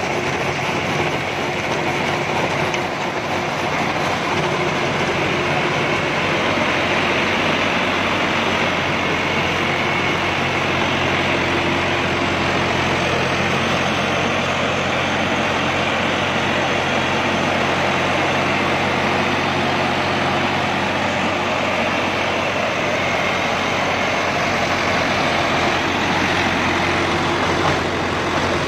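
John Deere 5075E tractor's three-cylinder diesel engine running steadily under load as it drives a PTO rotary tiller through soil and chopped banana plants.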